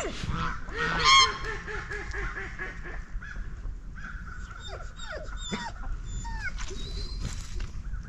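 Peafowl honking among clucking chickens. A loud call comes about a second in, then a quick run of repeated short notes, and scattered shorter falling calls follow later.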